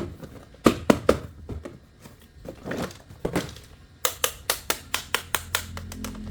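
Hands handling plastic toy vehicles: irregular sharp clicks and taps, quickening to a run of about five clicks a second near the end.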